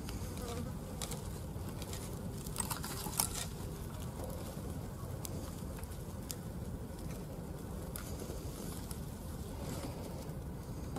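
Dry esparto grass strands rustling and crackling as they are plaited by hand into a braid, with scattered sharp crackles, the loudest about three seconds in. A steady low hum runs underneath.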